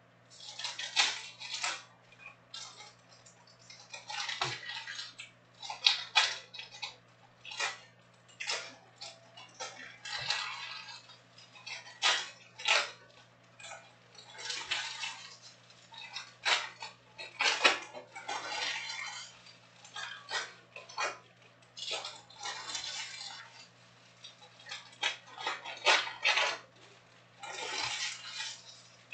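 Foil trading-card pack wrappers crinkling and cards being handled, in quick irregular bursts with small clicks.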